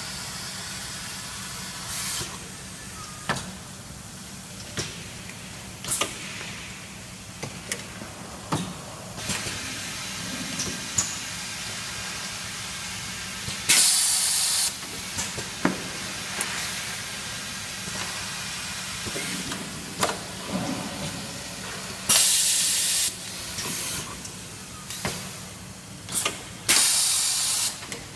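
Pneumatic assembly machine cycling: sharp clacks from air cylinders and valves, and three louder bursts of compressed-air hiss about a second each, over a steady machine hum.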